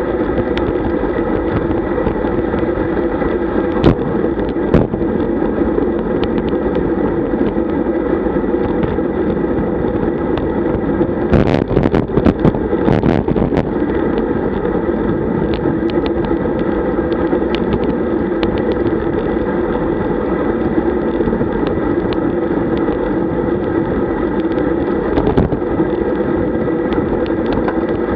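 Steady rush of wind and road noise on a camera mounted on a road bicycle riding at about 40 km/h, with scattered clicks and a short cluster of knocks and rattles about twelve seconds in.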